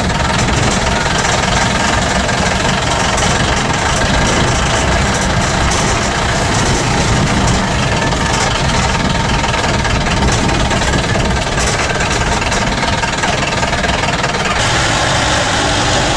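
Vehicle engine and road noise heard from inside the cabin while driving: a steady, loud rumble.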